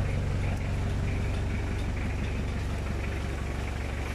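Freshly overhauled engine of a Mitsubishi L300 FB Exceed van idling steadily, running smoothly and judged to be in good order after the rebuild.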